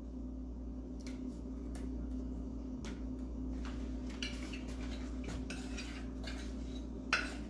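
Light taps and clinks of a glass mixing bowl as raw chicken is tossed by hand with dry seasoning, over a steady low hum, with a sharper clink near the end.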